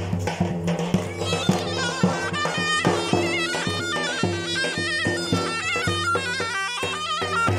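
Zurna playing a fast, ornamented folk dance tune with trills, over a steady low drone and a regular beat.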